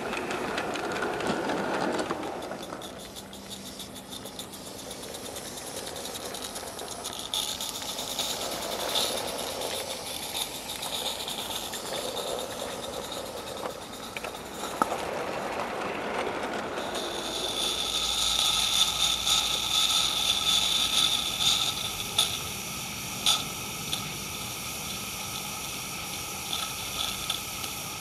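Wagons of a G-scale garden train rolling over the rails behind a Roundhouse Fowler live-steam model locomotive, followed by a steady high steam hiss that grows louder about halfway through, with a few sharp clicks. The locomotive has no chuffer fitted, so its exhaust gives a hiss rather than chuffs.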